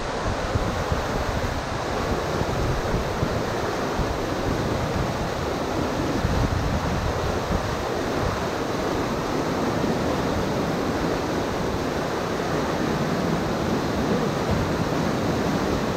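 Whitewater rapids rushing steadily down a river drop, with low gusts of wind buffeting the microphone.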